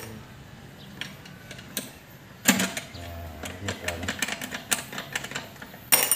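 Metal clicks and clacks from a Mazda Bongo 4x4 manual transmission's shift rod and selector being worked by hand, shifting it to check that it goes into gear. Two loud sharp clacks stand out, one about two and a half seconds in and one near the end.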